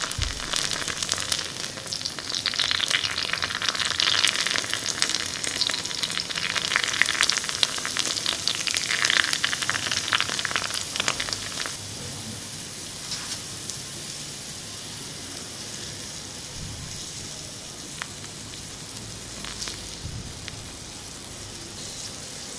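Jalebi batter deep-frying in hot oil in a miniature wok: a dense sizzle full of small crackles and pops. It is louder and busier for the first half, then settles to a softer, steadier sizzle about halfway through.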